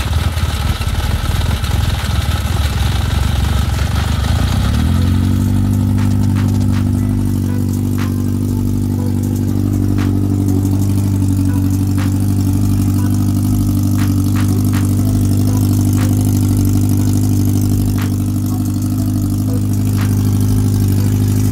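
Yamaha XJR400's air-cooled inline-four engine running just after its first start, uneven for about five seconds before it settles into a steady idle. The revs will not rise, because the throttle is not working yet.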